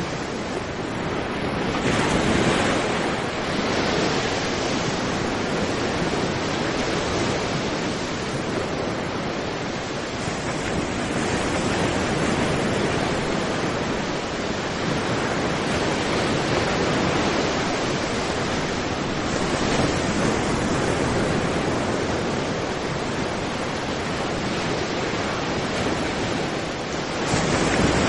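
Surf breaking and washing up a sandy beach: a continuous rush of foaming water that swells with each incoming wave, loudest near the end.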